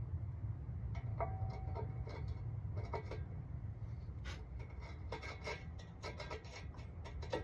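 Metal parts clinking and scraping together as a bearing is worked into place on the machine, with short clicks, some ringing briefly, from about a second in. A steady low rumble runs underneath.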